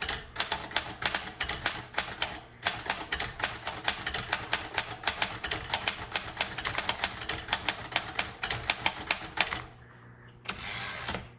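1935 Royal Model O portable typewriter being typed on quickly: a fast, uneven run of sharp key and typebar strikes as a sentence is typed, with one brief pause. The strikes stop and a short rasping sound follows about a second before the end.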